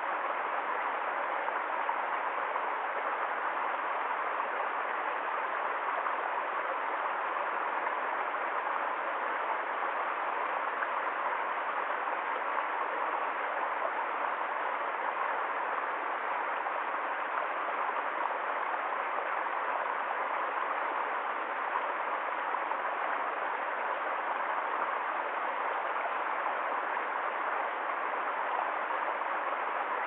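Small woodland stream running and splashing down over rocks, a steady, even sound of flowing water.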